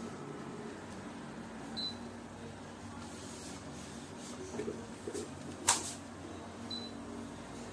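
Portable dehumidifier running with a steady low fan hum, with two short high beeps and a few clicks, the loudest a sharp click about three-quarters of the way through.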